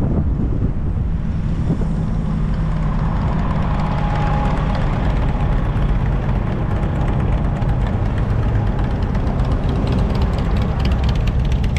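Steady low rumble of a car driving at highway speed: tyre and road noise with the running engine.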